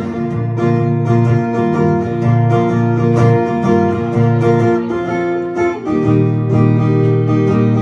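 Solo acoustic guitar playing an instrumental passage between verses of a folk song, with no voice: chords sounded in a steady rhythm over low bass notes, changing chord a little before six seconds in.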